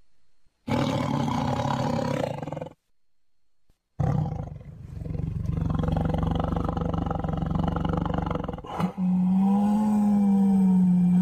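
Snow leopards calling: a call of about two seconds, then after a short gap a long, low, drawn-out call lasting several seconds, and near the end a higher, slightly wavering call.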